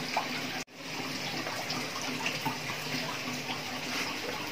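Steady running water, an even splashing flow, cutting out for an instant under a second in.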